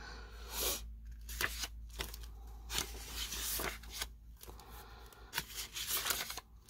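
Sheets of scrapbook paper rustling and sliding against each other as they are handled and leafed through, in short irregular swishes.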